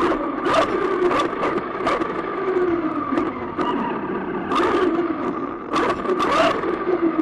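RC car driving at speed, with a motor whine that rises and falls with the throttle through corners and straights. Short, sharp bursts of hissing scrape break in every second or so, likely the tyres sliding on the tarmac.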